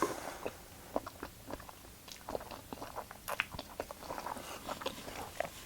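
A person chewing a mouthful of food close to the microphone: soft, irregular mouth clicks and small wet smacks.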